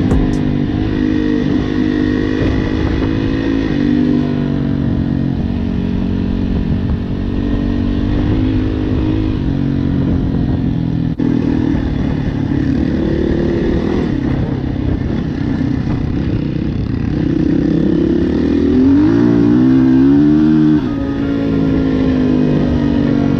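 Dirt bike engine running while riding, its pitch shifting up and down with throttle and gear changes. Near the end it revs up hard, wavers, and drops away suddenly.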